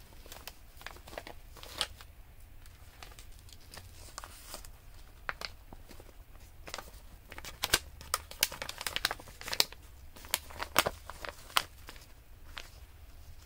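Paper pages and flaps of a handmade waterfall junk journal being handled and turned: crinkling and rustling with many short clicks and taps, busiest and loudest in the second half.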